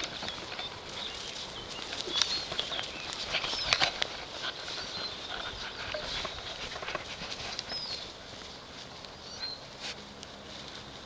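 Gordon Setter puppies rummaging in and tugging at a fabric bag: irregular rustling and scuffing of the bag and paws on grass, with a few short bird chirps.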